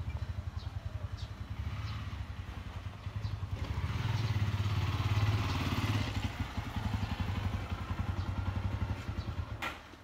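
An engine running with a low, rapid, even pulsing. It grows louder with added hiss in the middle, then stops abruptly near the end.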